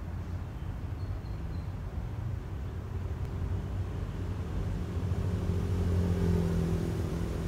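Distant diesel-electric locomotive running light, its engine giving a low rumble with a steady hum that grows louder to a peak about six seconds in, then eases slightly.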